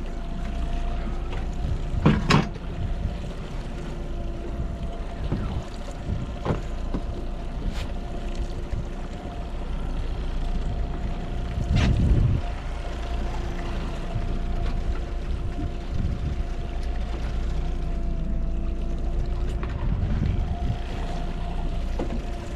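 Outboard motor running steadily at trolling speed, a constant low hum with a steady whine. A few knocks on the boat, the loudest about two seconds in and about twelve seconds in.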